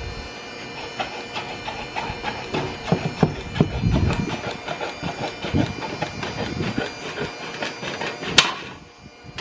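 Aviation snips cutting a 26-gauge Galvalume standing seam panel: repeated crisp metal snips, a few each second, one bite after another along the cut, with one sharp, loud snap near the end.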